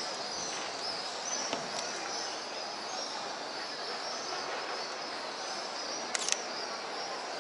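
Open-air city ambience: a steady wash of background noise under a constant stream of short, high-pitched bird chirps, with a brief sharp click about six seconds in.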